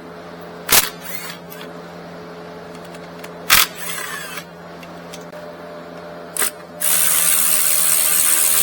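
Three sharp clicks of hand tools on metal, spaced a few seconds apart, then a loud steady hiss for about two seconds at the end.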